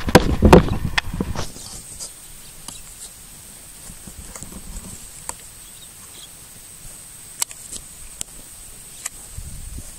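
Handling noise as the camera is shifted on a grassy bank: a cluster of rustles and knocks in the first second and a half, then only a few scattered faint clicks over a faint steady high tone.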